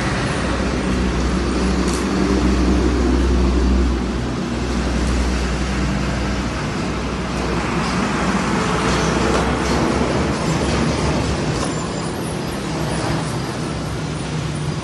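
Steady low rumble of a motor vehicle with traffic noise, heaviest for the first six seconds and then easing a little.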